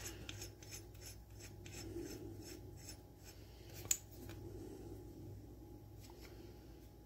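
Faint rubbing and small clicks of a metal roller-chain breaker tool being handled, its threaded pin turned by hand, with one sharper click about four seconds in.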